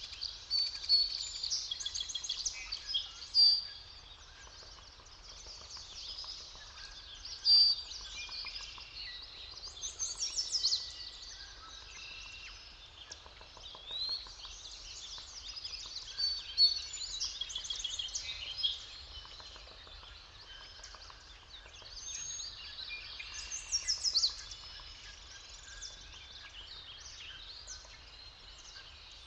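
Several songbirds singing together in a forest morning chorus: overlapping chirps, trills and warbled phrases, with a louder call standing out every few seconds.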